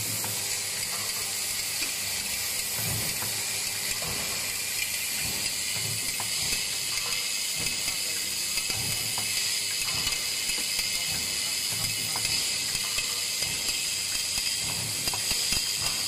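Pipe-clamp making machine running: a steady high hiss with irregular low thumps and light clicks.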